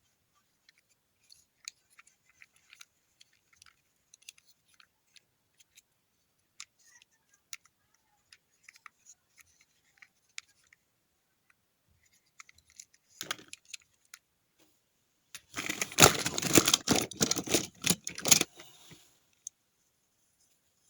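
Handling of toy cars and their packaging: scattered light clicks and taps, then a short rustle, and near the end about three seconds of loud rustling and clattering as the packaging is worked open.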